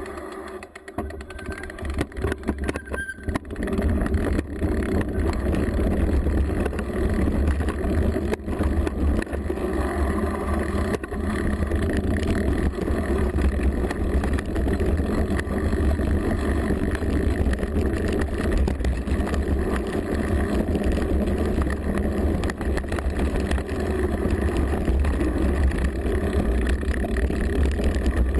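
Mountain bike riding down a rough trail, heard through a bike-mounted GoPro: a steady rumble of wind and tyres on the microphone, with constant small rattles and knocks from the bike over the ground. It builds over the first few seconds as the ride gets going.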